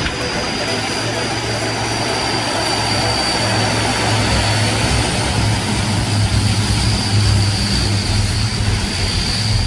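Four-engine turboprop airliner's engines and propellers droning steadily during a runway roll-out, with a strong low hum and a thin high turbine whine, growing a little louder partway through.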